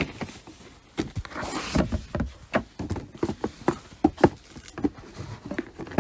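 Gift-box packaging being handled and opened: irregular taps and knocks of cardboard, with a burst of paper-like rustling about a second and a half in.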